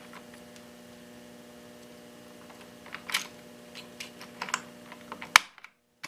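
A plastic keycap being pressed back onto the buckling-spring key switch of a 1993 IBM Model M keyboard: a few scattered clicks and knocks, the loudest a little after five seconds in, over a steady low hum. The sound cuts out abruptly near the end.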